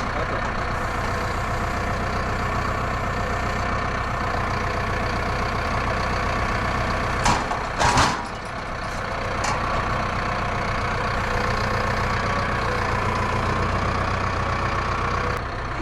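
Gasoline engine of a Mechmaxx SM-22 band sawmill running steadily. Two sharp knocks come a little past the middle.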